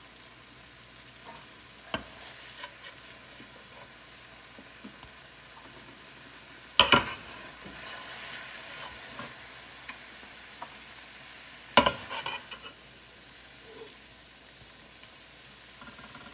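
Browned beef slices sizzling steadily in a stainless steel frying pan as a slotted serving spoon stirs and scoops them out. A few sharp knocks of the spoon against the pan, the loudest about seven and twelve seconds in.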